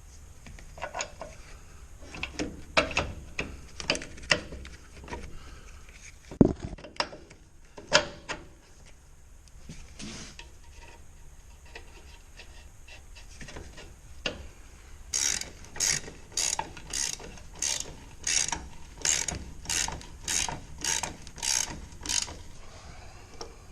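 Hand-tool work on metal: scattered clanks and knocks, one sharper knock about six seconds in, then a ratchet wrench worked in steady strokes about two a second for several seconds, tightening a fastener.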